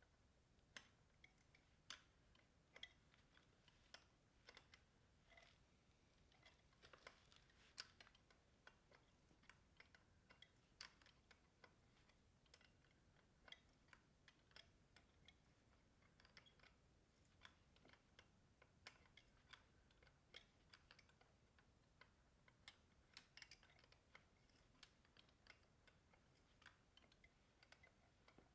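Faint, irregular small clicks and taps of motorcycle wheel spokes being fitted through the hub and rim and spoke nipples threaded on by hand.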